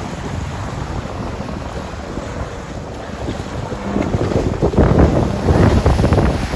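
A Sea-Doo personal watercraft running on open water, heard through strong wind on the microphone. It grows louder from about four seconds in, with a rush of water and spray as the craft turns close by.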